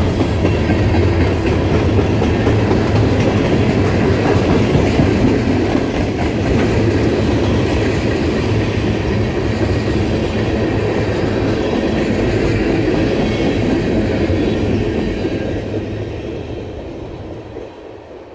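Freight train's tank cars rolling past, steel wheels rumbling and clicking on the rails. The sound fades away over the last few seconds as the end of the train passes and recedes.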